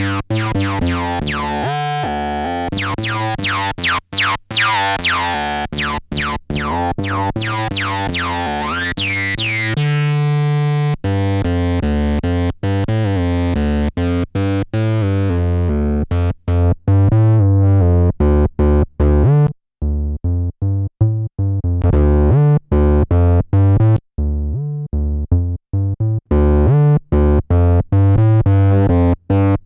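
Behringer TD-3, a TB-303-style bass synth, playing a sequenced acid bassline through its built-in distortion. The pattern starts bright and squelchy with the filter open, holds one note about ten seconds in, then the filter closes and the line turns darker and more clipped, opening slightly again near the end.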